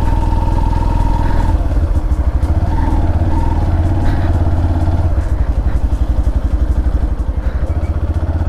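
Yamaha FZ-S V3's 149 cc single-cylinder engine and exhaust running steadily as the motorcycle is ridden, with an even low firing beat.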